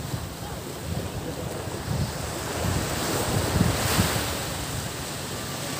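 Sea waves washing ashore, with wind buffeting the microphone in gusts; the surf swells loudest about three to four seconds in.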